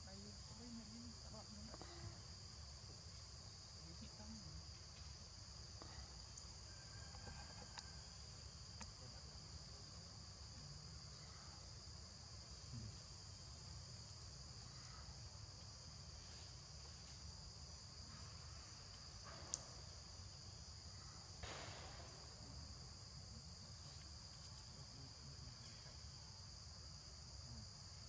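Faint, steady high-pitched insect chorus droning without a break over a low background rumble, with one sharp click about two-thirds of the way through.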